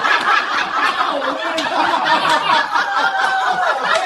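Hearty, sustained laughter with quick repeated bursts and a few drawn-out, higher-pitched held notes.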